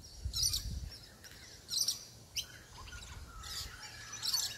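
Small birds chirping in short clusters of high, rapid notes, four or five times, with a faint thin whistle in the second half and a low rumble near the start.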